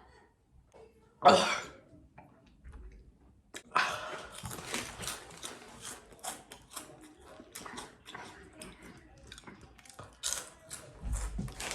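A single cough about a second in, then close-up crunchy chewing of spicy Cheetos: a dense run of sharp crackles lasting several seconds.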